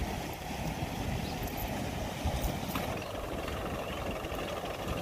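Kubota M6040SU tractor's diesel engine running steadily.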